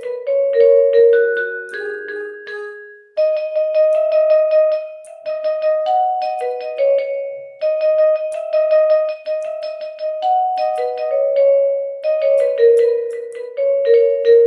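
Instrumental mobile-phone ringtone melody, a short phrase of quick notes repeating about every four and a half seconds.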